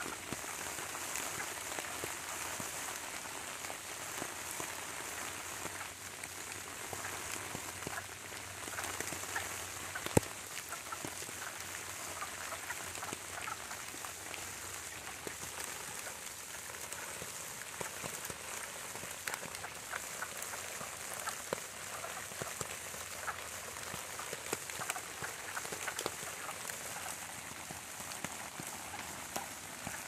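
Rain pattering on wet leaf litter, with a chorus of wood frogs quacking from the vernal pool.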